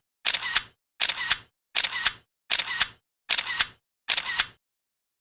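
Camera shutter sound effect, clicking six times in an even rhythm a little faster than once a second, each shot a quick double click.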